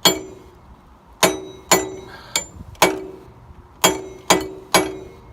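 Hammer blows on the nut refitted to a Massey Ferguson tractor's steering shaft: about seven sharp metallic strikes at uneven intervals, each with a short ring. They are shock blows meant to free a steering wheel seized on its shaft.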